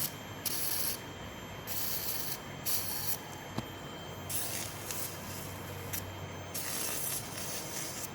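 Electrosurgical cautery pencil in blend 1 cutting mode sizzling as it cuts through muscle tissue, in about five separate hissing bursts, some brief and some over a second long.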